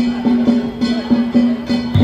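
Danjiri festival music (narimono): taiko drum and hand gongs struck in a quick, even rhythm, about four strokes a second, the gong ringing on between strokes.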